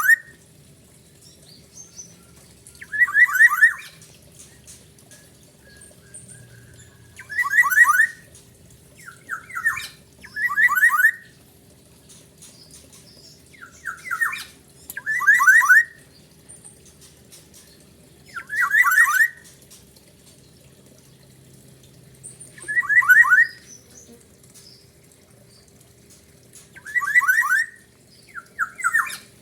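Black-naped oriole (kepodang) singing: short phrases of quick sweeping whistled notes, each about a second long, repeated about every four seconds. These are the siren-like notes that bird keepers call 'isian sirine'.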